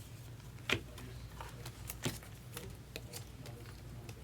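Trading cards being handled: scattered soft clicks and taps, with two sharper ones about a second and two seconds in, over a low steady hum.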